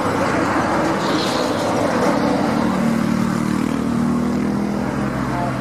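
Airbus A330 jet engines at takeoff thrust as the airliner lifts off and climbs away: a loud, steady rushing noise. About two and a half seconds in, a low drone comes through and slides lower in pitch as the aircraft recedes.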